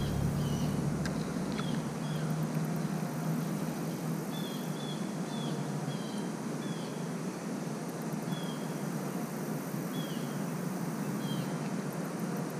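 Steady outdoor background noise with a bird repeating short, falling chirps every second or so, in loose clusters. A faint high buzz comes and goes.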